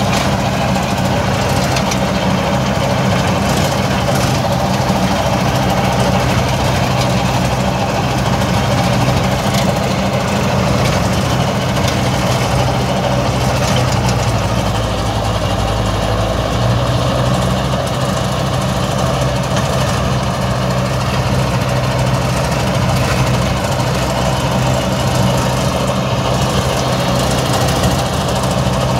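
Tractor diesel engine running steadily while it pulls and drives a Gobind super seeder working the ground.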